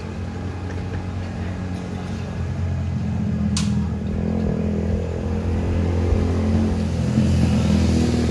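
A motor vehicle's engine running, the revs and loudness rising about three seconds in and again toward the end. A brief sharp sound cuts through once, partway through.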